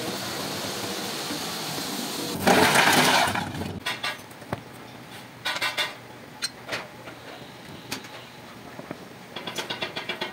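Foundry work: a steady rushing roar at the furnace as molten iron is tapped, swelling into a loud burst about two and a half seconds in. After that come scattered metal clinks and short quick runs of taps as iron moulding boxes are handled on the sand floor.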